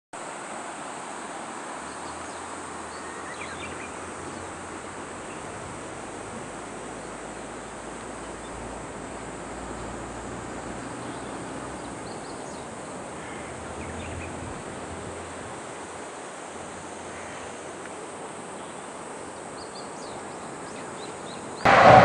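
Steady outdoor background hiss with a few faint short chirps. Just before the end, the loud noise of a railcar crossing a steel truss bridge starts suddenly.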